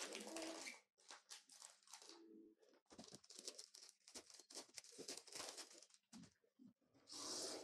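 Clear plastic wrapping being peeled and pulled off a paper-wrapped parcel by hand: quiet, irregular crinkling and crackling, with a longer, louder rustle near the end.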